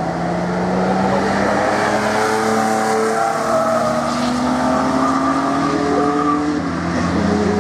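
Several cars, including a small hatchback, a classic Porsche 911 and a VW van, driving through a corner of the Nordschleife one after another. Their engines run with overlapping tones that rise and fall slowly as they change speed.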